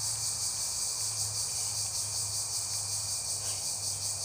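Steady, high-pitched chorus of insects, a continuous dense trill with a fine even pulse.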